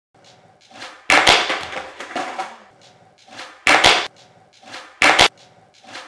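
Skateboard striking a concrete floor with three loud sharp cracks, about a second in, midway and near the end, each echoing in an enclosed concrete space.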